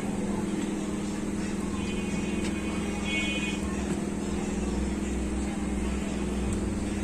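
Steady low hum under a deeper rumble, like passing road traffic, that swells about a second in and fades near the end, with faint distant voices.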